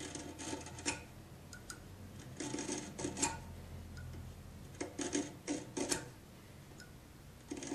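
Marking knife scoring short lines into the wood along a hinge leaf: small scratchy clicks and scrapes in three clusters, each lasting about a second.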